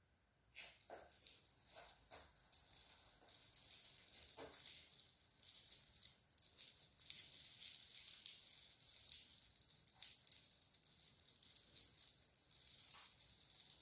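Strands of amethyst chip-bead necklaces rattling and clinking as they are handled: a dense, fairly faint clatter of small stone chips, with a few sharper ticks.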